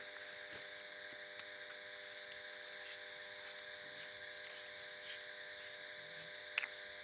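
A steady, faint background hum made of several even tones, with a hiss above it, and a small click about six and a half seconds in.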